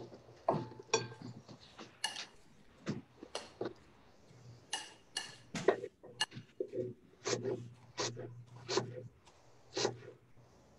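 Kitchenware clinking and knocking: a string of separate light taps and clinks of utensils against dishes, some ringing briefly, over a faint low hum.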